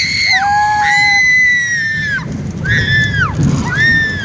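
High-pitched screaming from riders on a spinning amusement ride: about four long shrieks, with a second, lower voice overlapping near the start, over a low rumble.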